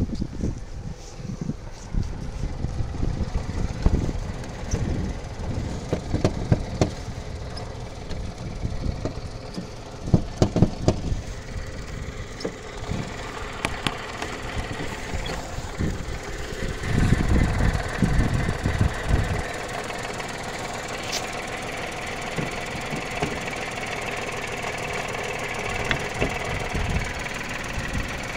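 Skoda Fabia 1.2 HTP three-cylinder petrol engine idling steadily. For the first two-thirds it is mixed with heavy rumble and knocks from the phone being handled. In the last several seconds the idle comes through clearly, with the bonnet open.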